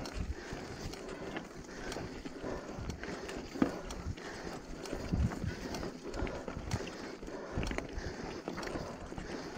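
Mountain bike rolling down a rocky dirt singletrack: tyres crunching over stones and the bike rattling and knocking on the bumps, the sharpest knocks about three and a half and five seconds in.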